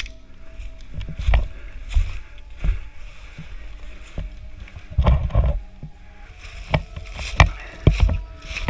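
Irregular thumps and knocks, about one every half second to second, with rustling, typical of a player's footsteps and gear moving, close to a helmet-mounted camera; a single sharp crack right at the start.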